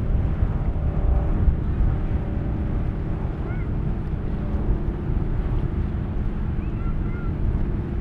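Outboard motor of a small rigid inflatable boat running at speed, its hum heard through heavy wind buffeting the microphone and the wash of the sea.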